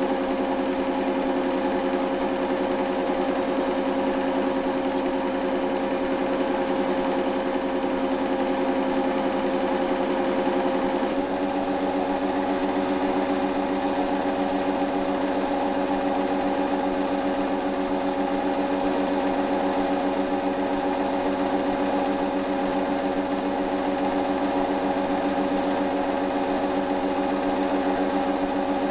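8mm cine projector running: a steady mechanical whirr and clatter with a constant hum. The pitch and tone shift slightly about eleven seconds in.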